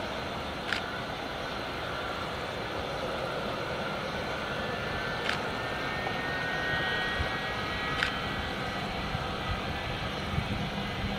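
Boeing 757 jet engines at low taxi power as the airliner turns on the runway: a steady jet noise with a faint high whine. Three brief high ticks cut across it.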